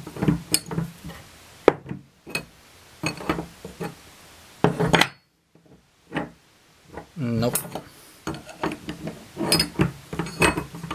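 Scattered metallic clinks and knocks of a spanner and a brass pipe T-fitting being handled and turned as the fitting is worked apart, with a couple of short muttered sounds from a man's voice.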